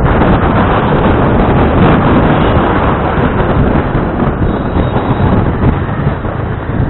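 Wind buffeting the microphone of a camera on a moving scooter: a loud, rough, fluctuating rumble.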